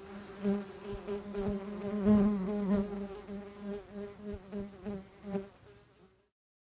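Bee buzzing: a steady hum that swells and fades in loudness as the bee moves about, then cuts off suddenly about six seconds in.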